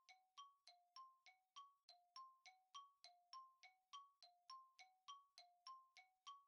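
Faint quiz countdown-timer sound effect: even tick-tock clicks, about three a second, each with a short ringing tone, alternating between a lower and a higher pitch.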